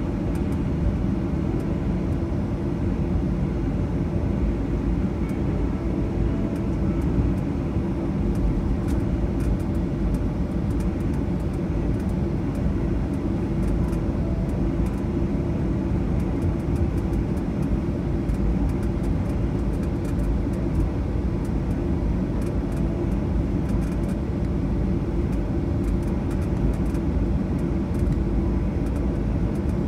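Airliner cabin noise as the plane taxis after landing: a steady low rumble from the engines and the rolling aircraft, unchanging throughout.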